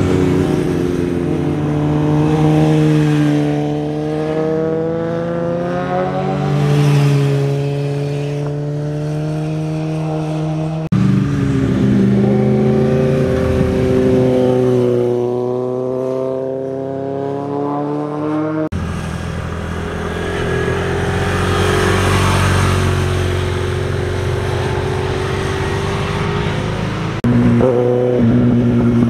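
Engines of vehicles driving through a hairpin bend one after another, with abrupt cuts between them. First a Honda Civic hatchback's engine note rises as it accelerates and then holds steady; then a Yamaha sport bike's engine dips and climbs again as it pulls away; then further motorcycle engines.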